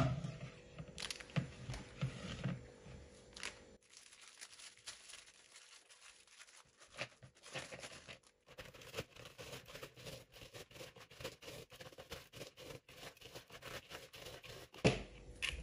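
Plain dry biscuits being broken and crushed by hand in a plastic bowl, with the cellophane wrapper crinkling. In the second half comes a dense run of small crunches and crackles as the biscuits are ground to crumbs.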